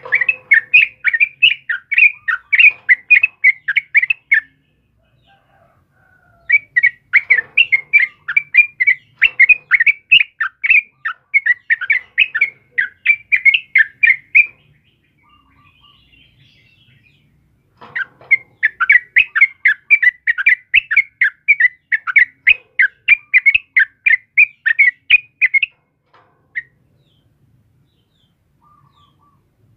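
Yellow-vented bulbul (trucukan) singing a dense, quick run of repeated chattering notes in three long bouts, with short pauses between them and one lone note near the end.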